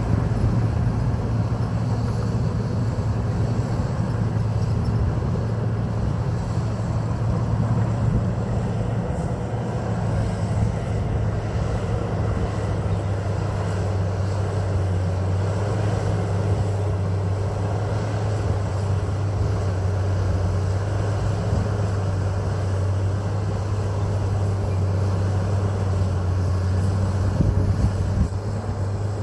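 John Deere 750J bulldozer's diesel engine running steadily under load, a deep drone whose pitch drops slightly about halfway through.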